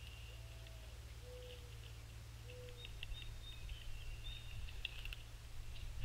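Wild songbirds calling around the feeders: short high chips and a few thin whistles, with three faint lower notes early on. Under them runs a steady low hum.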